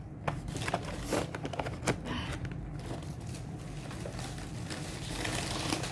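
Light clicks, taps and rustling of food containers and paper packaging being handled, over a low steady hum.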